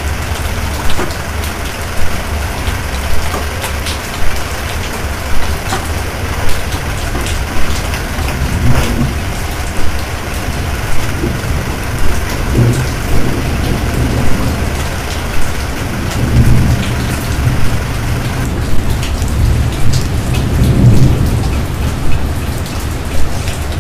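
Heavy storm rain pouring steadily over a constant deep rumble, with sharper knocks every second or so.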